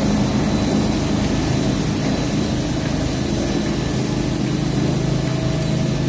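Maxis automatic carpet washing machine running, its motors giving a steady, unbroken low hum.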